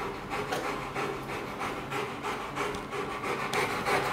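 A brush scrubbing a Rottweiler's wet, shampooed coat in rapid rasping strokes, about four a second, with the dog panting.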